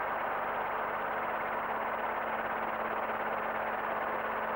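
Robinson R22 helicopter's engine and rotors running steadily in forward flight: an even rushing noise with a steady low hum underneath.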